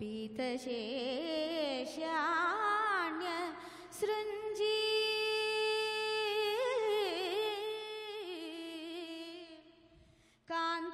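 A woman singing a classical verse in a Carnatic-style melody. She holds long notes and ornaments them with wide, wavering turns and slides. She breaks off briefly about ten seconds in, then comes back in.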